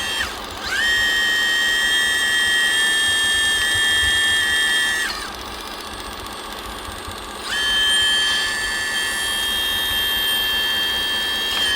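High-pitched whine of a radio-controlled model's small electric motor. It spins up about a second in, cuts off a little past halfway, then spins up again and runs steadily.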